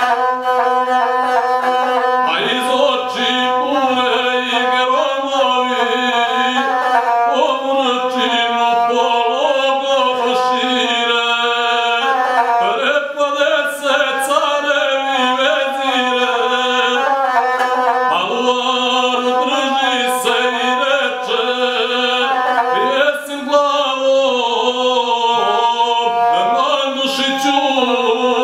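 A man singing a Serbian epic song in one unbroken line to his own accompaniment on the gusle, a single-stringed bowed folk fiddle, its bowed tone shadowing the voice.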